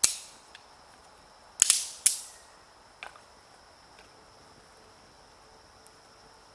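Several loud, sharp cracks, each dying away quickly: one right at the start, two close together about a second and a half to two seconds in, and a fainter one about three seconds in. They sit over a steady, high, thin insect trill.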